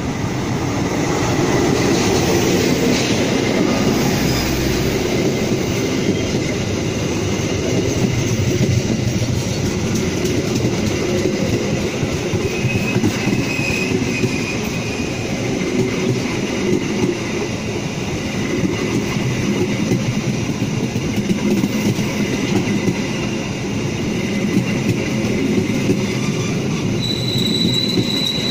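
Diesel-hauled passenger train passing close by: the locomotive goes by first, then a long string of stainless-steel coaches with the wheels rumbling and clattering over the rails. A thin wheel squeal comes in briefly about halfway through, and a steadier high squeal starts near the end.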